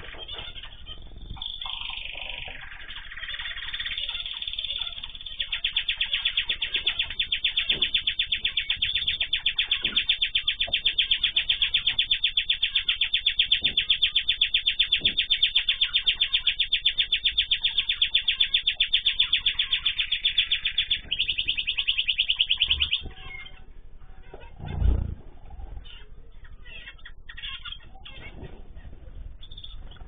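A small cage songbird singing a long, very fast, even trill that runs for over a quarter of a minute with one short break, then stops. After it, scattered chirps and a single low thump.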